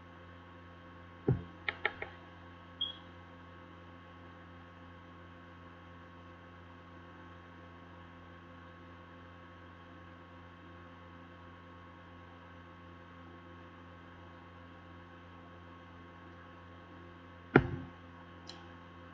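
Steady electrical hum over faint hiss, broken by a few sharp clicks: one a little over a second in followed by three quick ones, a short high blip soon after, and a loud click with a short cluster near the end.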